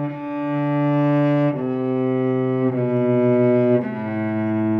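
Cello bowed in a slow series of single held notes, four in all, each lasting a second or so before the next.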